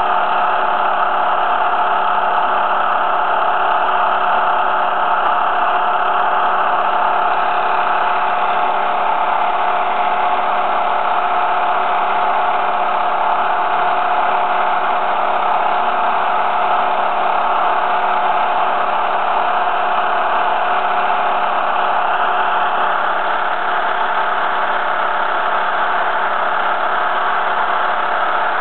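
CNC engraving machine running steadily, a constant mechanical hum with a steady whine, as its spring-loaded engraving tool cuts letters into hot-rolled steel plate.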